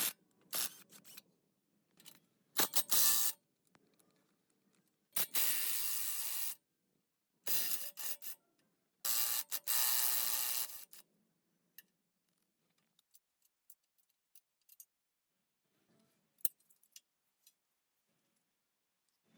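Mechanical workshop sounds: clicking and ratcheting, with four loud bursts of noise of a second or so each, then a few scattered faint clicks.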